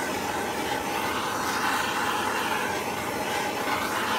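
Steady rushing noise of a heating tool running continuously on the aluminium crankcase half, heating it to free a tight main bearing.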